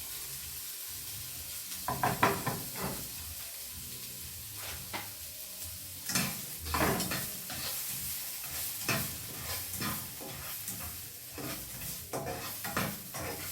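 Chopped vegetables frying in hot oil in a pan with a steady sizzle, while a utensil stirs and scrapes against the pan every few seconds.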